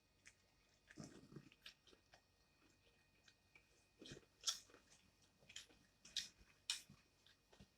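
Close-miked chewing and biting of fried food: scattered soft crunches and wet mouth clicks, a few sharper bites around the middle and near the end.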